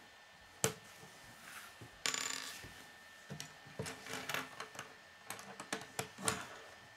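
K'nex plastic pieces clicking and clattering on a wooden tabletop as parts are handled and pressed together: a sharp click about half a second in, a short rattling shuffle of pieces at about two seconds, then a run of small clicks.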